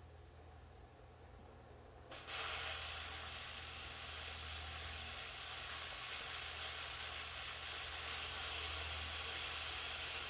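MIG welding arc, struck about two seconds in and running steadily without a break for about eight seconds, as a domed steel cap is welded onto the top end of a steel pipe to close it.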